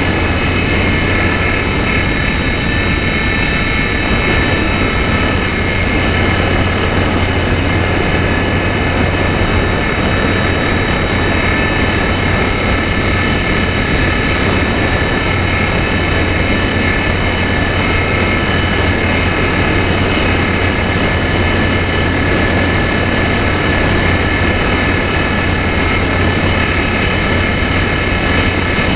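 Slow Stick RC plane's electric motor and propeller running steadily at full throttle during a climb, heard from the onboard camera: a high whine with several fixed tones and a low hum over a steady rushing noise.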